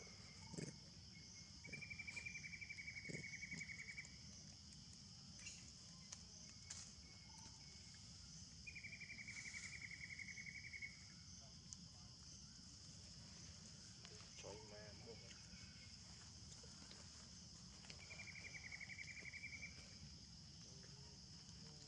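Faint insect calling: a steady high drone throughout, with three rapid pulsed trills of about two seconds each, near the start, in the middle and near the end.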